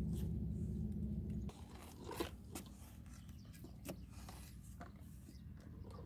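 A low steady rumble that cuts off abruptly about a second and a half in. Then a hand digging tool chopping and scraping into dry, grassy soil, with scattered crunching strikes.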